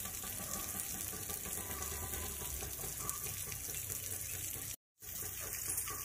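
Steady rush of running water. The sound cuts out for a moment about five seconds in.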